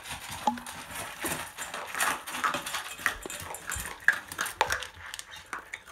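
Two husky-Pomeranian mix puppies eating from bowls: rapid, irregular crunching and clicking of chewing, with the food and bowls knocked about as they gobble.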